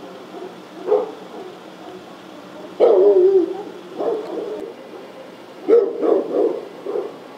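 Dog barking in bursts of short calls, with one longer, drawn-out falling call about three seconds in and a quick run of barks near the end.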